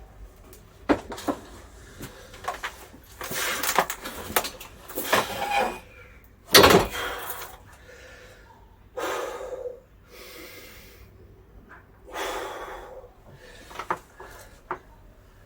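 Irregular handling noises from work on a cable drum and cable: scattered knocks and clicks with short scraping or rustling bursts, the loudest a sharp knock with a scrape about six and a half seconds in.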